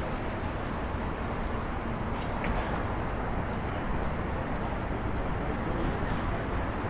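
Steady city street traffic noise: a continuous low rumble of cars and trucks moving along a busy avenue, with faint light clicks over it.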